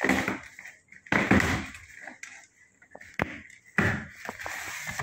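Handling noise from a new refrigerator: a few knocks and bumps, with noisy rustling bursts, as its doors and compartments are worked.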